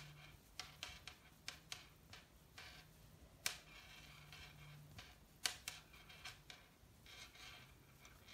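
Near silence with a few faint, irregular clicks and soft rustling from a metal crochet hook working yarn through stitches.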